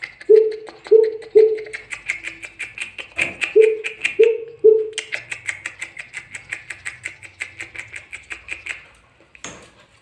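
Caged coucal giving deep hooting calls in two runs of three quick hoots, a few seconds apart, over a fast, steady ticking series that stops shortly before a single knock near the end.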